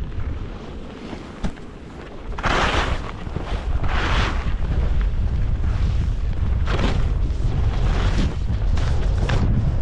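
Skiing downhill: wind buffeting the microphone as a steady low rumble, with the skis scraping and hissing over the snow at each turn, about five times.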